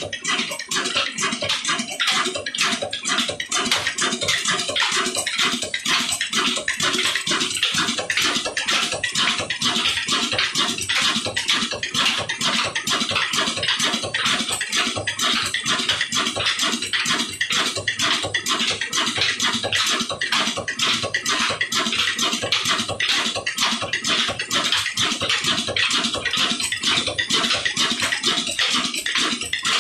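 Old Ruston Hornsby stationary engine running steadily under its own power, its flywheel and flat drive belt turning a line-shaft pulley, giving a fast, even rhythmic beat with belt and pulley rattle.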